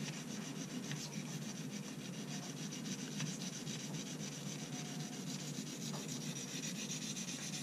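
Victorinox Tinker Swiss Army knife blade stroked back and forth on a fine sharpening stone, a steady run of rubbing strokes. The blade is under fairly firm pressure, still shaping the edge bevel, and the burr has not yet formed on this side.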